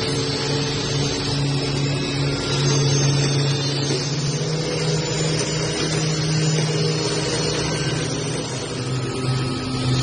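Mesh watch band weaving machines running, a steady mechanical hum with a noisy rattle over it.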